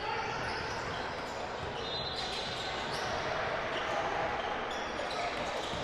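Game sounds of a basketball game on a gym's hardwood floor: a ball bouncing and players moving, over a steady din of voices in the hall.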